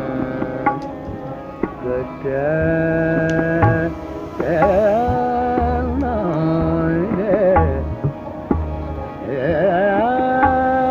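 Harmonium holding steady reed notes and playing a melody, with tabla strokes and a singer's wavering, ornamented phrases between the held notes.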